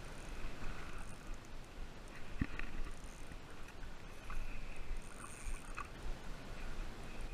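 Sea water lapping and splashing against a small boat's hull, with wind on the microphone and a few sharp knocks, one of them about two and a half seconds in.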